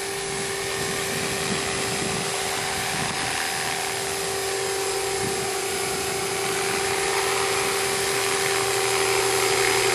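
SJM430 RC helicopter in flight: the steady whine of its motor and the rotor blades, with one strong held tone. The owner notes vibration and blade tracking still needing correction on this maiden flight.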